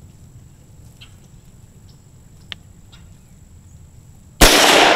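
A single .22 Magnum rifle shot from a youth single-shot Crickett rifle, sudden and loud about four and a half seconds in, with a long echoing tail. Before it, quiet outdoor ambience with a few faint clicks.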